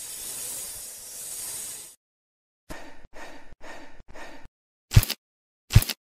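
A snake hiss sound effect lasting about two seconds. Then come five short, evenly spaced scratchy sounds, and near the end two loud thuds.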